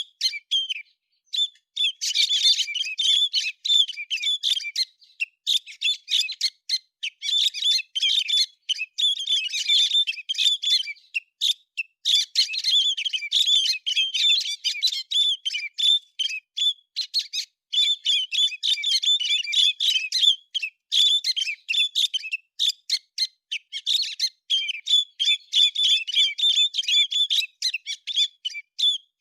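Héc xoan bird singing: rapid, high-pitched chirping in dense runs of a few seconds each, broken by short pauses, over and over.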